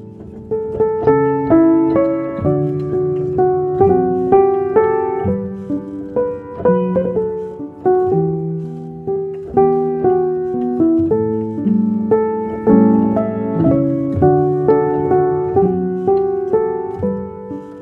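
Background piano music: a slow, gentle melody of single struck notes that ring and fade, over lower sustained notes.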